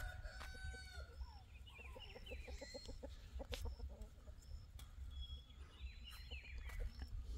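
Chickens clucking faintly, with a few drawn-out calls near the start and a run of quick clucks about two to three seconds in. Short high chirps recur throughout.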